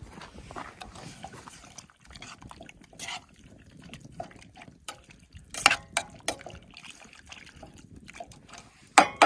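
Liquid sloshing and dribbling in a cooking pot, with scattered clicks and knocks. Two sharper knocks come about halfway through and near the end.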